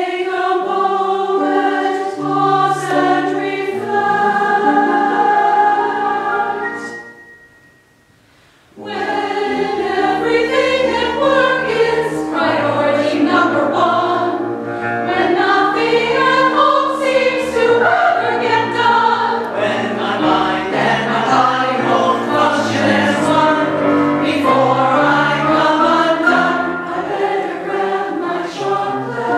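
Women's choir singing in several parts, breaking off about seven seconds in and starting again about two seconds later.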